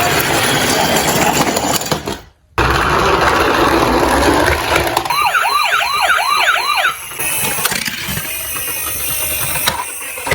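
Emergency-vehicle siren in a fast yelp, its pitch sweeping up and down about three to four times a second for about two seconds in the middle, amid a loud, dense rumble that drops out briefly about two seconds in.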